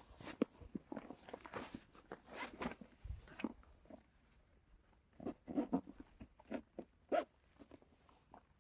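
Close handling noises: irregular rustling, crunching and clicks, with a low thump about three seconds in and a lull around four to five seconds in.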